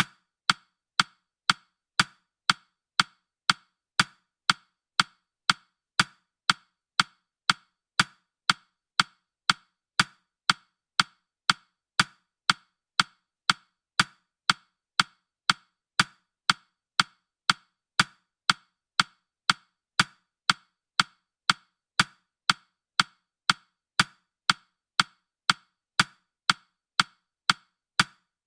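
Countdown timer's ticking sound effect: short, sharp clock-like ticks, evenly spaced at about two a second.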